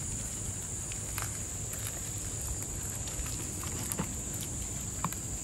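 Soft, wet squishing and a few faint clicks of gloved hands working a thick chilli spice paste onto a fish. A steady high insect drone runs underneath.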